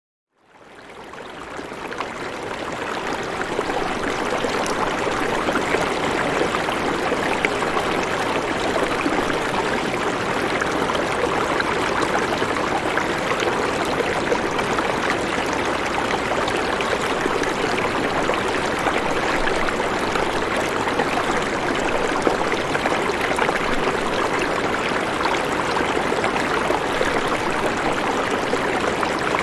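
Steady rushing water sound, fading in over the first two or three seconds and then holding even.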